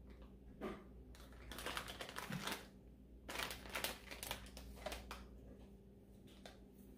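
Crackling rustle of a foil seasoning sachet being squeezed and shaken over raw turkey skin, mixed with hands rubbing and patting the seasoning in, in several short bursts.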